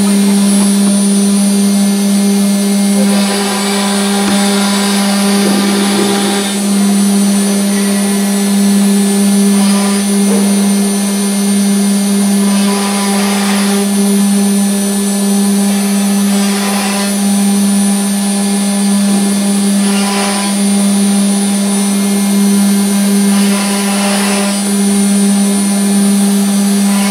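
CNC router's HSD spindle running with a steady whine while its V-bit carves a sheet board, with a rush of cutting noise swelling and fading every three to four seconds.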